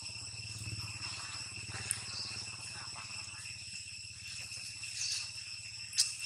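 Steady, high insect drone over a low rumble, with a faint click about two seconds in and a sharp click near the end.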